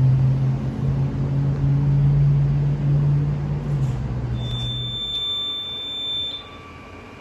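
A vehicle engine idles with a steady low hum for about five seconds. It is followed by a single high-pitched steady electronic tone from a fire alarm control panel's buzzer, which stops about six seconds in and leaves a quieter room hum.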